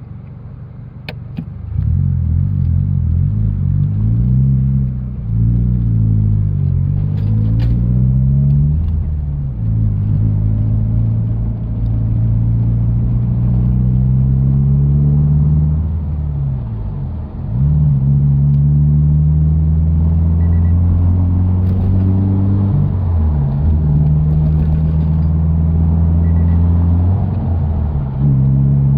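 Toyota 86 (ZN6) flat-four engine breathing through a BE FREE aftermarket exhaust with its silencer fitted, heard from inside the cabin with the windows down while driving. A deep exhaust drone comes in about two seconds in, rises and falls in pitch several times as the car accelerates and shifts, then holds a steady cruising tone broken by brief dips when the throttle is lifted.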